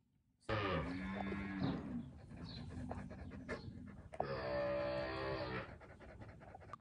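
Calves bawling: two long calls, the first falling in pitch, the second starting about four seconds in.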